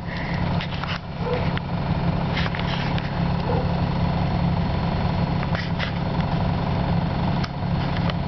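1939 Dodge D11's 218 cubic-inch flathead inline-six engine idling steadily, heard from inside the car.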